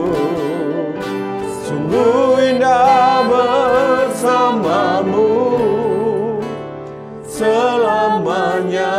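A slow Indonesian worship song sung by a man and a woman, long held notes with vibrato, over instrumental accompaniment.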